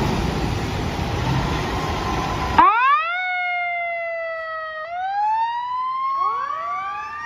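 A steady rushing noise that cuts off abruptly about two and a half seconds in, then a fire-engine siren wailing: a quick rising sweep that slowly sags, then rises again with a second overlapping wail near the end.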